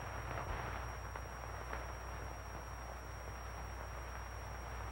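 Steady hiss and low hum of an old film soundtrack playing back in a hall, with a thin high whine and a faint soft knock about half a second in.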